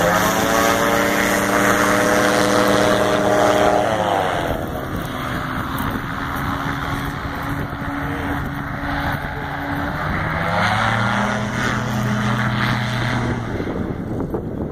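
Propeller-driven air car running at speed, engine and propeller loudest at first. Its pitch slides down about four seconds in, holds lower, climbs again about ten seconds in, then drops again near the end.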